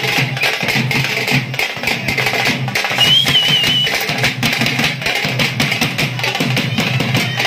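A troupe of drummers beating a fast, loud rhythm on barrel drums slung from the shoulder and struck with sticks. About three seconds in, a brief wavering high tone cuts through the drumming for about a second.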